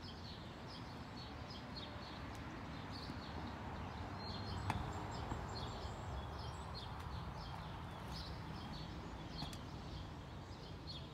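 Garden tool scraping and stirring potting soil in a plastic pot, with a single sharp knock a little under halfway through. Small birds chirp repeatedly throughout.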